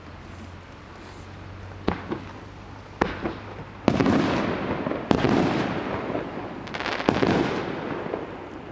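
Fireworks going off: five sharp bangs a second or two apart, the last three each followed by a second or two of dense crackling.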